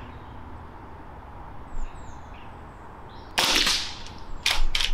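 Remington Vought regulated PCP air rifle being shot and recocked: a sharp discharge about three and a half seconds in, then quick clacks of its large bolt action being worked near the end.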